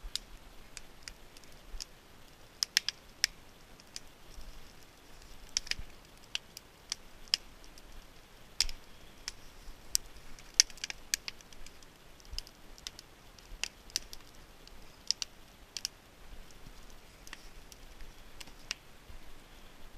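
Wood campfire crackling, with irregular sharp pops.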